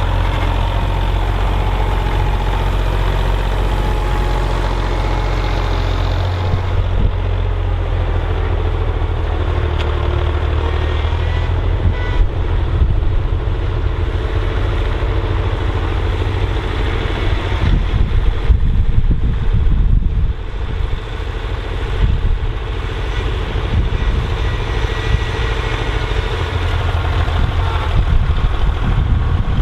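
Bukh Juno tractor's diesel engine running steadily under load while pulling a plough, its sound turning rougher for a few seconds past the middle with a brief dip in loudness.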